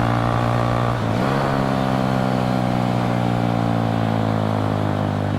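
Bajaj Pulsar NS125 motorcycle engine running steadily while riding. It dips briefly about a second in, then its pitch eases slowly downward.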